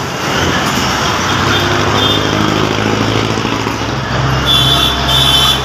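A motor vehicle's engine running steadily at idle, a low even hum, with a couple of brief higher tones near the end.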